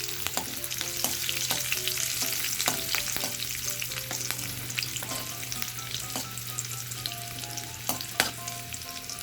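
Green chillies, ginger and garlic sizzling in hot oil in a pan, with the spatula repeatedly clicking and scraping against the pan as they are stirred.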